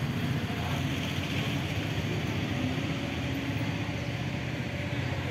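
Steady outdoor background noise: a continuous low rumble and hiss with no distinct event.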